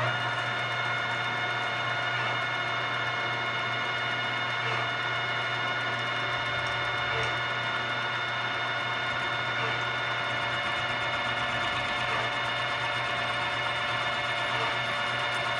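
Vertical milling machine running, its end mill roughing out a pocket in a solid aluminium block. A steady machine whine with several fixed pitches over the noise of the cut, unchanged throughout.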